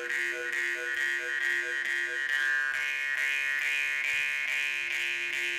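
Khomus, the Yakut jaw harp, played solo: a steady buzzing drone with shifting overtones that make a melody, in quick rhythmic pulses at first, then held longer in the second half.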